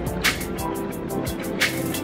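Background music with a fast ticking beat, about six or seven ticks a second, and two brighter swells about a second and a half apart.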